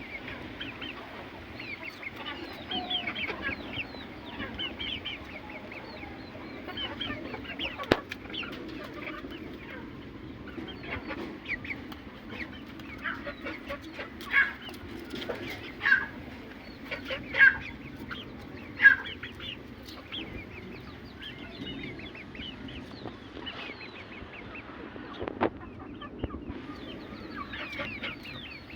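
Aseel chickens clucking, with many short calls overlapping. Four louder calls come about a second and a half apart in the middle.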